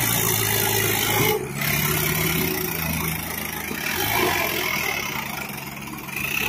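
Mahindra Arjun tractor's diesel engine running, its speed stepping up about a second and a half in.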